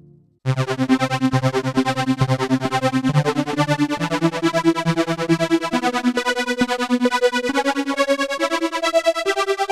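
Modor NF-1 virtual analog synthesizer playing a preset: a fast, pulsing pattern of repeated notes, about seven pulses a second, whose pitch steps upward in stages. It starts about half a second in, after the previous sound has faded out.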